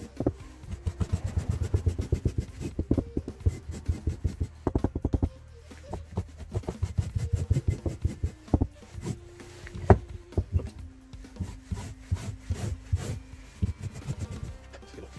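A handheld portable lint remover scraped in quick, uneven strokes over car carpet, raking up dog hair, with a sharper knock about ten seconds in.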